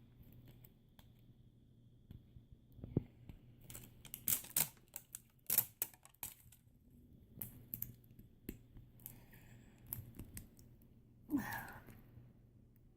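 Scattered sharp clicks and crackles of plastic toy packaging being picked at and pulled while someone works at a stubborn zip strip. A short breath-like vocal sound comes near the end.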